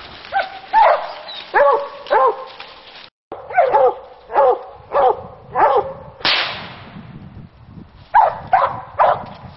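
Coonhounds barking treed, a steady string of loud chop barks about one every half second to second, with a short break just after three seconds. Just after six seconds a sudden sharp noisy burst cuts in and fades away within about a second.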